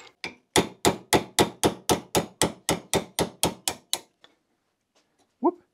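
A hammer striking metal on a rusty Škoda 105 front brake caliper clamped in a bench vise. About sixteen quick, even blows land at roughly four a second and stop about 4 seconds in.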